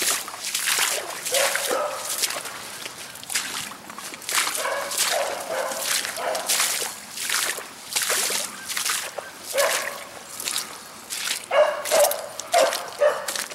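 A rabbit hound baying while running a rabbit's trail, with short calls scattered through and several close together near the end. Boots squelch and slosh through shallow water and mud, about two steps a second.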